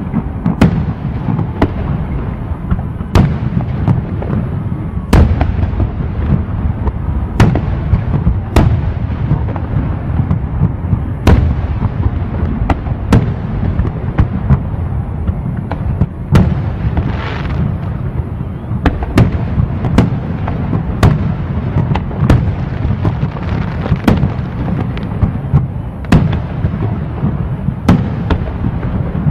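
Fireworks display: aerial shells bursting with sharp bangs about once a second, at irregular spacing, over a continuous low rumble. A brief rising hiss comes a little past halfway.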